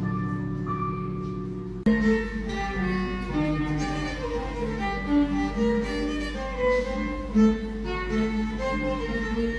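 Live keyboard chords held and fading, cut off abruptly about two seconds in by a violin playing a melody over a plucked oud accompaniment.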